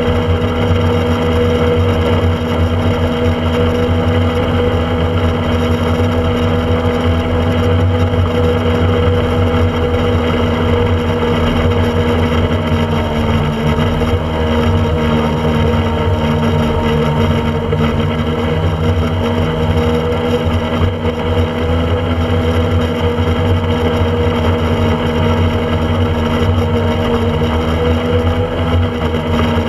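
Small speedboat's engine running steadily under way, a continuous drone with water and wind noise, its pitch easing slightly about halfway through.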